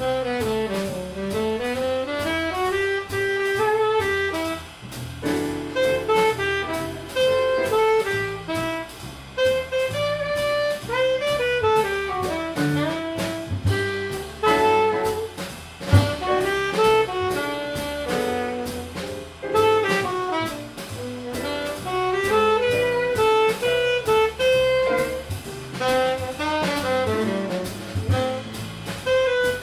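Alto saxophone playing a flowing jazz melody line that runs up and down in quick runs, over a rhythm section of drums with a steady cymbal pattern and double bass.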